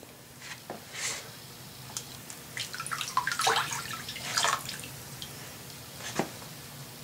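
Water dripping and trickling back into the electrolysis bath from a rust-encrusted tin-can anode as it is lifted out, with one light knock near the end.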